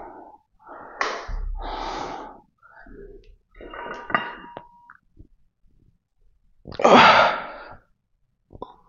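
A man's hard breaths and forceful exhalations as he lifts a loaded barbell and presses it overhead, with a low thud about a second and a half in. A short strained grunt comes about four seconds in, and the loudest sharp exhale comes near seven seconds.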